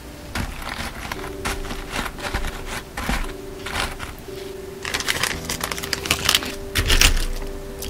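Earrings handled close to the microphone, giving light clicks, taps and crinkly jingles, over soft background music.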